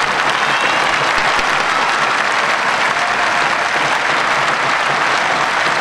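Crowd applauding steadily, dense continuous clapping from many spectators.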